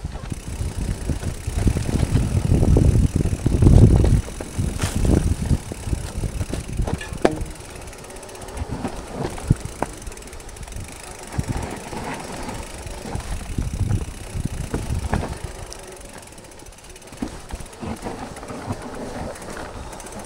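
Specialized Levo SL electric mountain bike riding over wet roots and dirt: tyres rumbling, with knocks and rattles from the bike as it hits the roots. The rumble is heaviest for the first four seconds or so, then eases to lighter scattered clicks and knocks.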